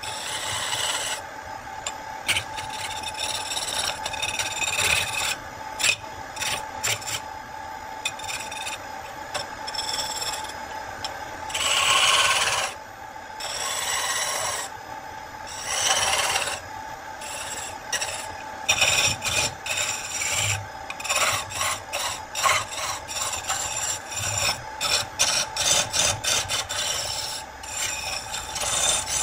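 Wood lathe spinning a spindle while a turning gouge cuts it, a rough scraping shaving sound that swells and fades as the tool is worked along the piece, over a steady whine. In the second half the cuts come quicker and choppier.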